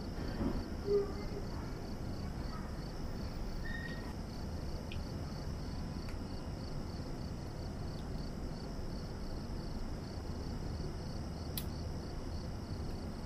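Steady low background hiss with a faint high, evenly pulsing whine, broken by a few light, sharp clicks of fine tweezers and tools against a watch movement's small metal parts.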